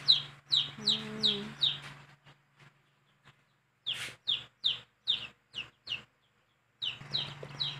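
Newly hatched chicks peeping: a run of high, downward-sliding peeps about three a second, dropping away for a couple of seconds in the middle and then starting again.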